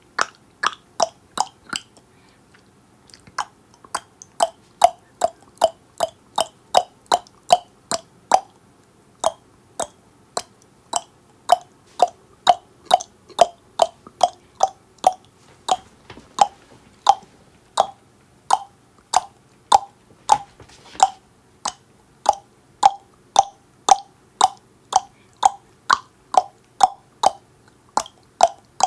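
A person's tongue clicking against the roof of the mouth in a steady run, about two hollow clicks a second, with a brief pause early in the run before it picks up again.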